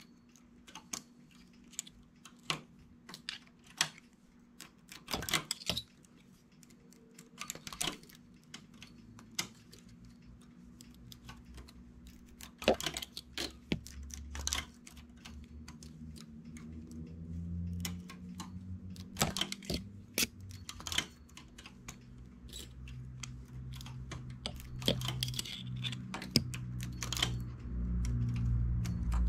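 Irregular small metallic clicks and taps of hand transfer tools and latch needles against a domestic knitting machine's metal needle bed, as stitches are moved and crossed to form cables. A low hum comes in about halfway and grows louder toward the end.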